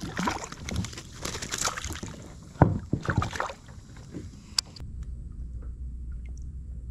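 Knocking and rustling of fishing gear and a landing net against a plastic sit-on kayak while a trout is brought aboard, with one sharp loud knock about two and a half seconds in. After a sudden change about three quarters of the way in, only a steady low rumble with a few faint ticks remains.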